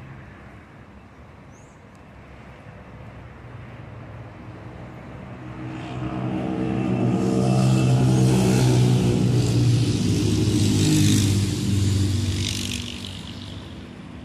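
Intercity coach's diesel engine passing close at low speed, growing louder, staying loud for several seconds with a hiss over the engine note, then fading as it moves away.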